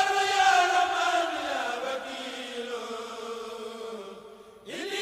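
A single voice chanting a khassida (Murid devotional poem): one long held line that falls slowly and fades, then a new chanted phrase begins near the end.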